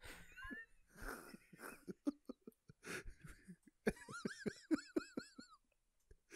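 People laughing, stifled and wheezy, with coughs and breaths. About four seconds in it breaks into a fast run of laughs, about five a second, with a high wavering squeal over them.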